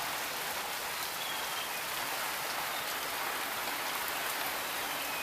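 Heavy rain coming down steadily, a dense even patter with no let-up.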